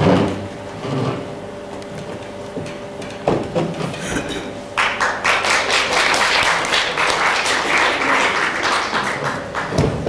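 A few separate knocks, like wooden chairs bumping on a stage floor, then, about halfway through, an audience breaks into applause for about five seconds.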